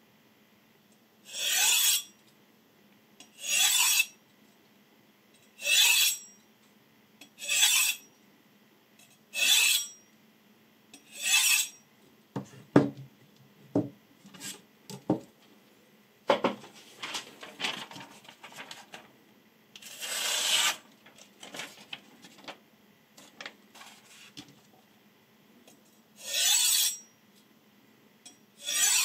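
Kitchen knife blade drawn along a ceramic honing rod: six short scraping strokes about two seconds apart, each dropping in pitch. Then a run of light knocks and clicks as the rods and knife are handled, with one longer stroke in the middle, and two more strokes near the end.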